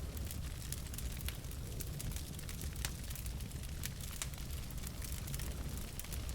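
Wood fire burning in a fireplace: a low steady rumble of flames with frequent sharp, irregular crackles and pops from the burning logs.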